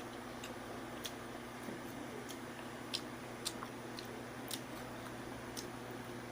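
Wet mouth clicks and smacks of someone eating mango, about one or two sharp clicks a second, over a faint steady hum.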